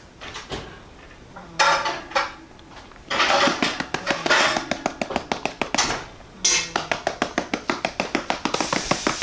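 Ground coriander rattling in a plastic spice shaker bottle shaken quickly over meat: rhythmic rattling strokes about six a second, in several bursts with a short break about six seconds in.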